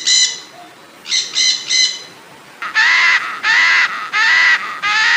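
Heron calling: a series of harsh, squawking calls, first two quick runs of three short notes, then four longer calls about two-thirds of a second apart.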